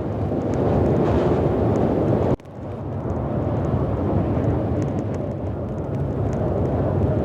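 Strong wind on the microphone: a loud, steady low rumble that drops out suddenly for a moment about two and a half seconds in, then returns.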